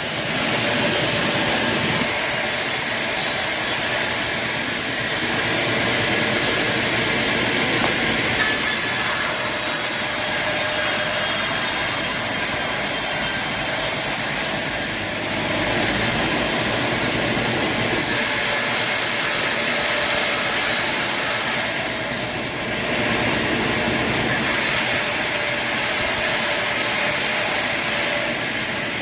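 Sawmill machinery running with saws cutting wood: a loud, steady noise that shifts in character every few seconds.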